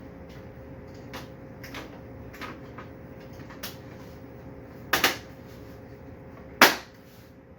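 A computer case panel being fitted back on: several light clicks, then two loud sharp snaps about five seconds and six and a half seconds in.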